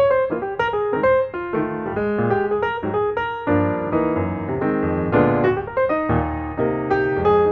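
Background music played on piano: a steady run of notes.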